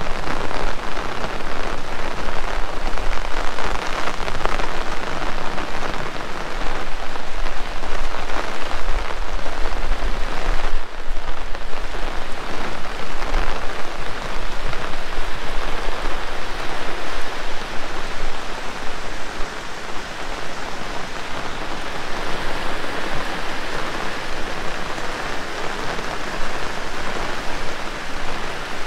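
Heavy rain pouring down in a steady, dense hiss, easing slightly about two thirds of the way through.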